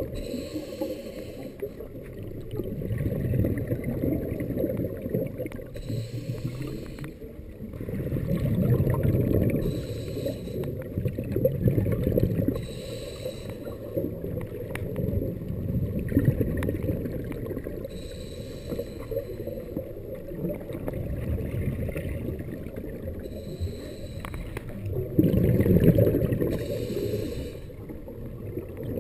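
Scuba regulator breathing heard underwater through the camera housing: a muffled rush of exhaled bubbles rising every few seconds, with short fainter inhale hisses between.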